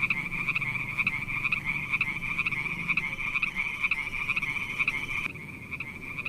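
Frogs calling in a steady chorus: rapid pulsed croaks repeating without a pause.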